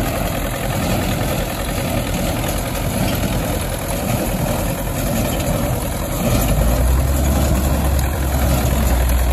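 Belarus tractor's diesel engine running steadily, with a deeper, louder low hum setting in about six seconds in.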